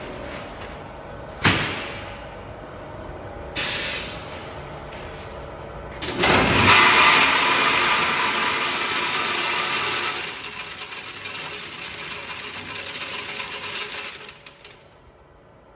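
A DCS-50ZH bagging machine running with a steady hum and two sharp clicks. About six seconds in, large walnuts pour from its weigh hopper into the clamped woven sack as a loud rattling rush that tails off over several seconds as the bag fills.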